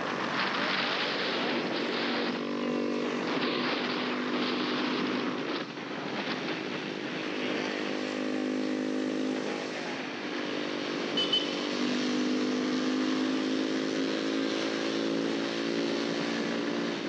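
Honda RS150's single-cylinder engine running under way, its note holding steady in long stretches and dropping away briefly about five and a half and ten seconds in. Heavy wind rushes over the microphone throughout.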